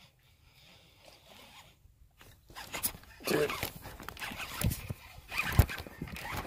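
Fishing reel and tackle handling noise as a bass is hooked on a topwater lure: rapid clicking and rattling sets in about three seconds in. Two heavy knocks against the chest-mounted camera follow.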